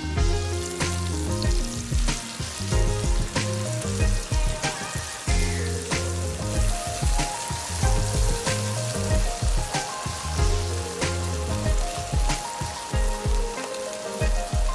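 Vegetable stew sizzling in a nonstick wok while a silicone spatula stirs it. Background music plays over it, with a steady beat and held low notes.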